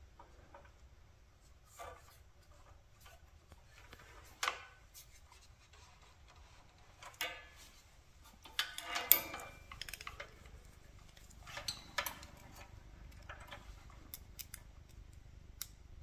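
Scattered light clicks and rattles of hands working a small engine's wiring harness, pulling at a stuck bullet connector and handling multimeter test leads, with a short burst of louder clicks about nine seconds in.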